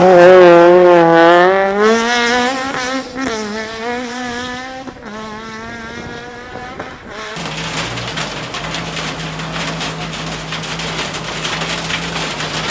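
Rally car passing close at racing speed, its engine note loudest at first, then wavering up and down with the throttle as it fades away. About seven seconds in, the sound changes abruptly to a steady low hum under an even hiss.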